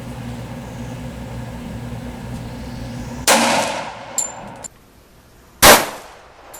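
Two shots from a Glock 21 .45 ACP pistol, about two and a half seconds apart, the second the louder and sharper. A short high metallic ping comes between them.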